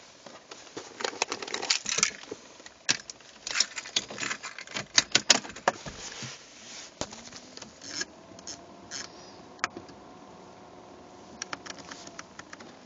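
Sharp clicks and rattles of plastic being knocked and rubbed at a BMW E46's centre dash climate control panel. About seven seconds in, a faint hum rises in pitch and then holds steady until near the end.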